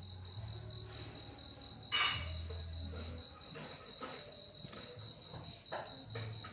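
A small knife cutting into wooden tongue-depressor sticks glued into a model wall, heard as a string of short scraping clicks, the loudest about two seconds in. A steady high pulsing tone runs behind it.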